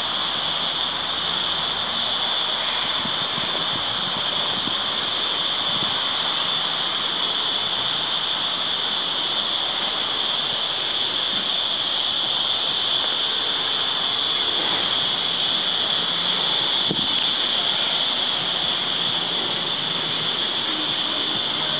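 Cicada chorus: a steady, shrill, high-pitched drone that never breaks, over a constant rushing background noise.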